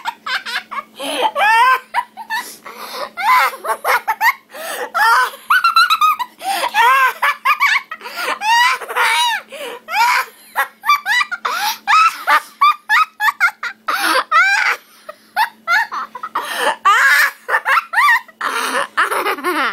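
A child's put-on laughter for a laughing contest: loud, high-pitched ha-ha bursts in quick runs with brief breaks for breath.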